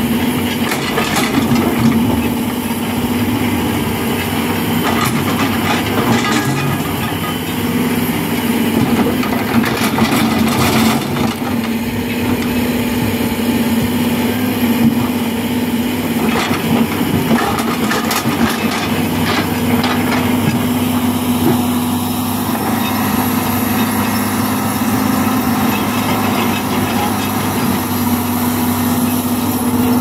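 Doosan 500 LC-V hydraulic excavator's diesel engine running steadily under working load, with occasional knocks and clatter of rock against the steel bucket as it digs.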